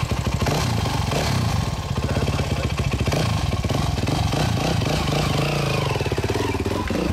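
Yamaha WR450 single-cylinder four-stroke dirt bike, big-bored to 480 with an FMF exhaust, being ridden and revved up and down, its separate firing pulses plainly heard.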